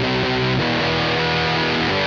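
Rock music soundtrack with distorted electric guitar playing sustained chords that change about every second, entering on a sliding note.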